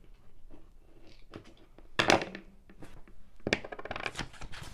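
Hands handling paper and washi tape on a planner page: rustles and small taps, a loud crinkling crackle about two seconds in, and a quick run of crackles near the end.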